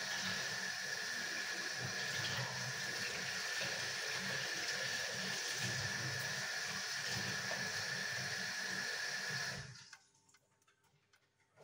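Kitchen tap running in a steady stream with a faint whine, shut off abruptly near the end.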